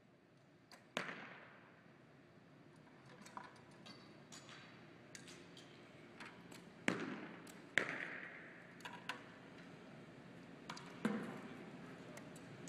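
Arrows loosed from compound bows and striking target butts in a gym hall: four sharp hits, one about a second in, two close together near the middle and one near the end, each ringing on in the hall's echo, with fainter clicks and knocks between.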